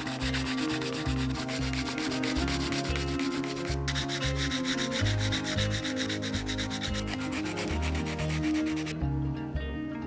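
Sandpaper rubbed by hand over old wood in quick back-and-forth strokes, scouring off the darkened surface. It breaks off briefly about four seconds in and stops about a second before the end.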